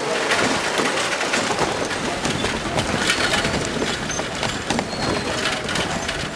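Street noise heard from a moving cycle rickshaw: a steady busy din with rattles and knocks, and a few short high chirps.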